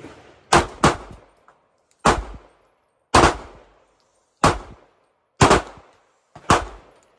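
Semi-automatic pistol firing seven single shots at an uneven pace of about one a second, the first two close together, each shot sharp with a short echoing tail.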